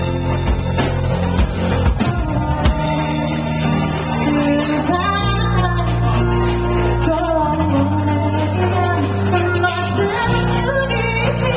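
A live band plays a song: a woman sings over a strummed acoustic guitar, with electric bass, drum kit and a Roland Juno-D keyboard.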